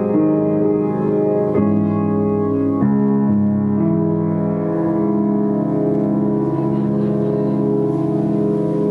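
Live keyboard playing sustained, organ-like chords. The chord changes every second or so, then one chord is held from about four seconds in, with a faint hiss rising beneath it.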